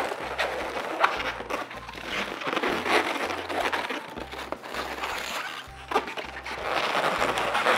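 Latex twisting balloons rubbing and creaking with scratchy squeaks as they are twisted and wrapped into a balloon sculpture, over background music with a steady stepping bass line.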